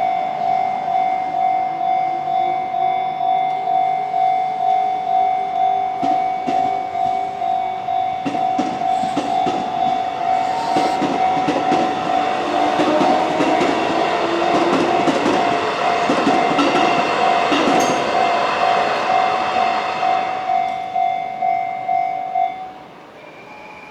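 Japanese railroad crossing warning bell ringing in a steady repeating ding, about one and a half rings a second. Over the middle of it a train passes over the crossing with wheel clatter on the rail joints. The bell stops shortly before the end.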